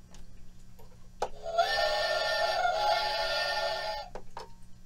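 Steam-whistle sound effect from the PLAYZ toy steam engine model, set off by pulling its whistle chain. A click, then a steady, many-toned whistle lasting about two and a half seconds that cuts off sharply.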